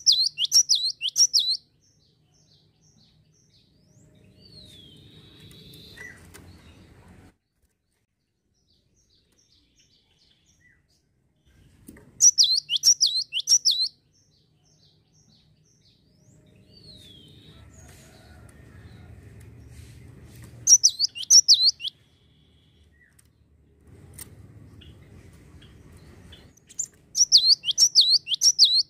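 Cinereous tit (gelatik wingko) singing: four short bursts of rapid, high, sharply falling notes, each lasting a second or two, several seconds apart. A faint low hum fills some of the gaps.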